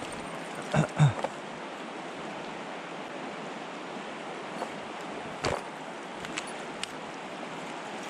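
Steady rush of a shallow river flowing past. Two short knocks about a second in and a few lighter clicks later, the clearest about five and a half seconds in.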